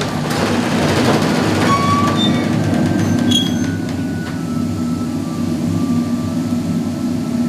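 A very low note on a 32-foot pipe of a large pipe organ, sounding as a loud, steady, deep rumble felt as pressure in the ears. A few short, faint higher tones come and go over it.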